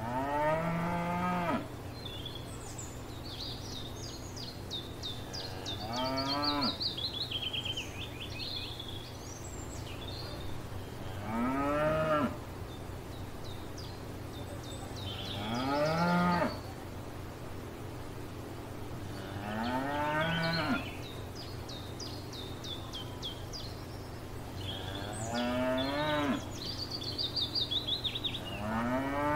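Cows mooing, about seven drawn-out moos each rising in pitch, spaced roughly four to five seconds apart. Songbirds chirp high and faint between the moos.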